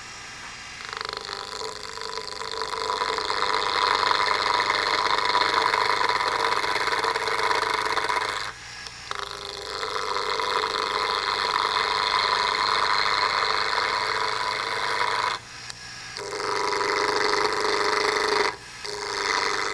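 A spindle gouge cutting a square wood blank spinning on a mini wood lathe, rounding off its corners with a continuous rough cutting noise. The noise starts about a second in and stops briefly three times where the tool comes off the wood.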